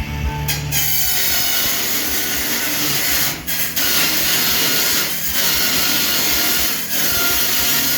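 A power tool cutting into the sheet-metal cabinet of a washing machine. It starts just under a second in and runs as a loud, continuous hiss with three brief pauses.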